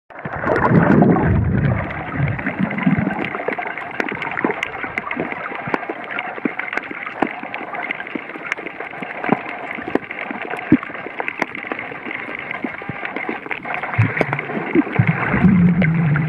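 Underwater water noise: a steady hiss scattered with many small clicks and crackles, with muffled low gurgling bursts in the first two seconds and again near the end.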